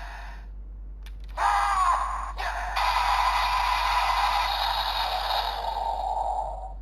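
Electronic sound effects playing through the small built-in speaker of an Ultraman Trigger Guts Sparklence toy transformer, set off by an inserted Ultra key. They start about a second and a half in, break briefly, then run steadily for about four seconds before stopping.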